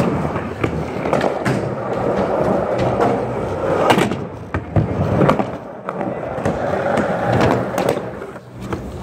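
Skateboard wheels rolling over a smooth concrete floor and ramps in a continuous rumble. Sharp clacks of boards hitting the ground come several times.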